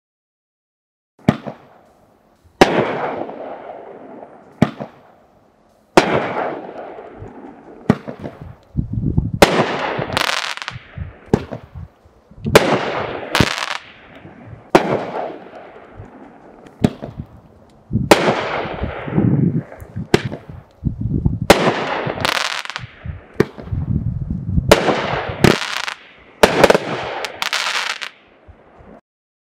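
Dominator 'USA Pyro' 12-shot fanned consumer fireworks cake firing: a string of sharp bangs about every one to two seconds, each trailing off in a fading tail. The shots begin about a second in and stop near the end.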